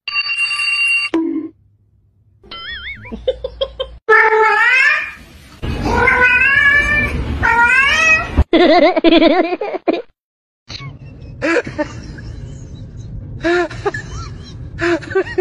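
A cat meowing in a long run of drawn-out, wavering calls, like a cat answering back over an empty food bowl. It starts about four seconds in, after a brief steady electronic alarm tone at the start. Fainter short calls over a low hum follow near the end.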